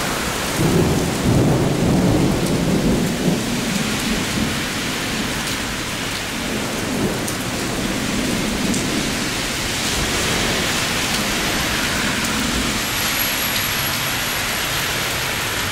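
Heavy rain pouring steadily onto wet pavement and standing water, with a low rumble of thunder in the first few seconds.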